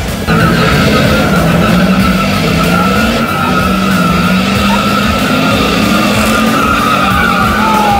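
Pickup truck engines held at high revs under heavy load in a tug of war, with tires spinning and squealing on the dirt. Loudness jumps up just after the start and then stays steady.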